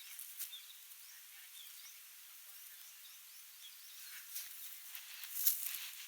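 Outdoor riverside ambience: a steady hiss of flowing water with small birds chirping now and then. A few short clicks and rustles come through, the loudest about five and a half seconds in.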